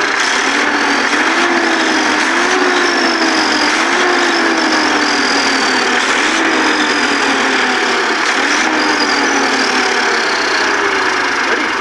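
Massey Ferguson 241 tractor's diesel engine running, its pitch rising and falling every second or two.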